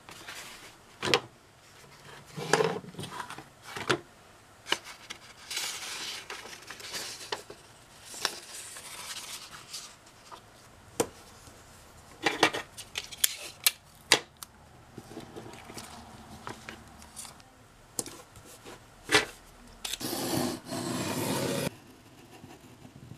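Hands working at a leathercraft bench: sharp knocks and clicks as tools and a steel ruler are picked up and set down, and rustling of chrome-tanned leather and a paper template being laid out and taped. A louder, longer scraping sound comes near the end.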